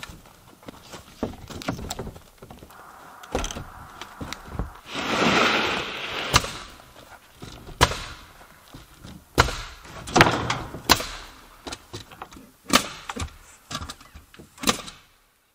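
Construction work on OSB wall sheathing: irregular sharp knocks of nails being driven into the wall framing, one to two seconds apart, among thuds of the sheets being handled, with a longer rushing noise about five seconds in.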